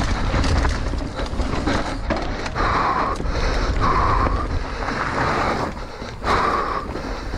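Mountain bike ridden fast down a dirt forest trail: wind rushing over the helmet camera's microphone, tyres rumbling on the dirt and the bike rattling over roots and bumps. A few short, louder sounds come through, about a second apart, past the middle and again near the end.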